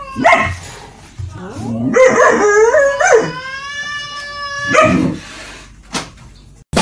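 A dog howling and whining in a wavering voice, a short call first and then, about two seconds in, a rising and falling run that ends in one long held note.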